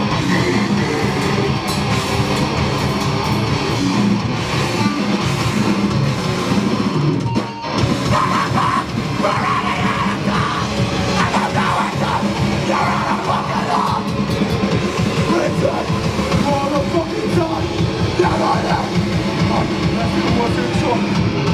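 Heavy band playing live: distorted electric guitars and drum kit, with a brief break about seven and a half seconds in before the band comes back in.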